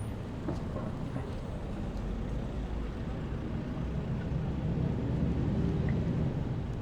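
Busy city street traffic: a steady rumble of engines and tyres, swelling between about four and six seconds in as a heavier vehicle passes close.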